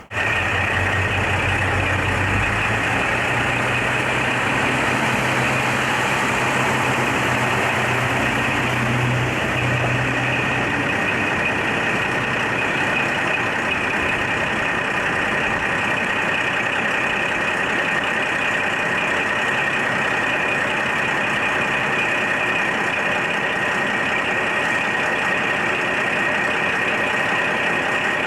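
Diesel railcar engine running, a low hum over a steady loud rumble of running noise; the engine hum fades out about ten seconds in while the rumble carries on.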